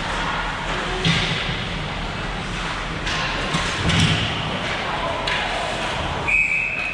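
Ice hockey arena ambience of crowd chatter, with two loud thumps about one and four seconds in. Near the end a referee's whistle gives one short steady blast.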